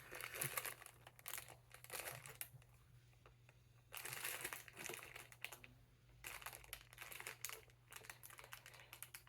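Plastic packaging crinkling faintly in short irregular bursts as it is handled and torn open, with quiet pauses in between.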